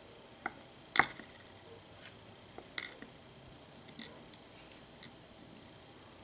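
Small metal lock parts clicking and clinking as a Lockwood oval cylinder is taken apart: half a dozen short, sharp clicks, the loudest about a second in.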